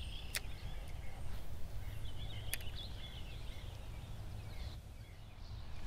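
Outdoor ambience: faint bird calls over a steady low rumble, with a couple of brief sharp clicks.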